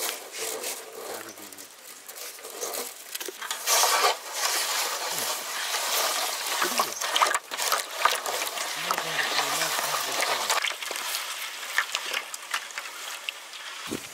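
Hands mixing meat with a wet spice marinade in a large metal vessel: a steady run of irregular squelching and rubbing strokes.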